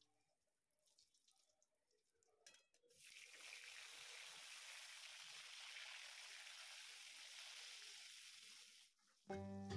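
Pumpkin slices sizzling in hot oil in a kadai, a steady frying hiss that starts about three seconds in and stops shortly before the end, when background music comes in.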